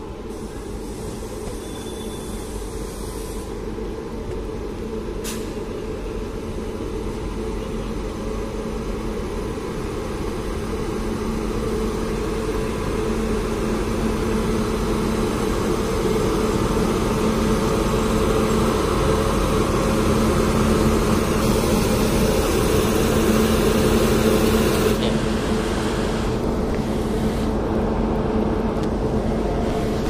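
Indian Railways electric locomotive and its passenger train approaching and running past a station platform, with a steady hum and rumble that grows louder as it nears. The sound is loudest between about 20 and 25 seconds in, then breaks off suddenly.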